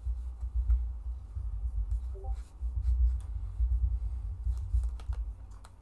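Scattered faint taps and clicks of playing cards being handled and laid on a table, over a steady low rumble.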